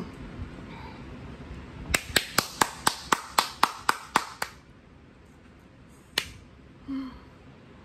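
A quick run of about a dozen sharp hand claps, roughly five a second, then a single clap a couple of seconds later, followed near the end by a short muffled hum through closed lips.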